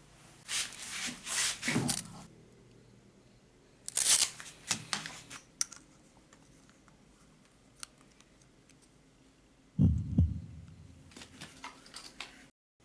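Hands handling small pieces of card or plastic sheet on a hard work surface. There are bursts of rustling and scraping about half a second in and again around four seconds, a dull thump near ten seconds, then a few light clicks and taps.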